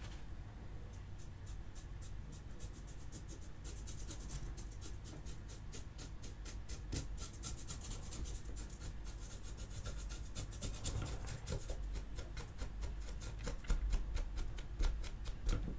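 A paintbrush dry-brushing paint across the sculpted hair texture of a plastic action-figure arm. It makes a rapid run of short brushing strokes, several a second, starting about a second in.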